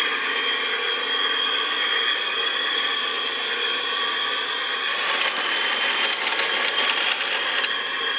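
Radio-controlled scale model Scania Longliner truck driving, its electric drive motor and gearbox giving a steady high whine. About five seconds in, a dense rapid clicking and rattling joins for a few seconds, then stops.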